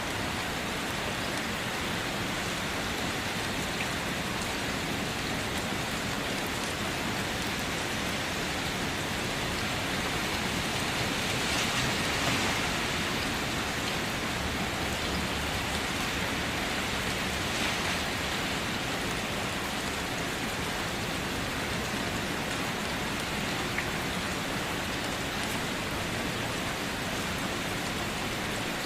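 Steady rain falling, a continuous hiss, swelling a little heavier about twelve seconds in.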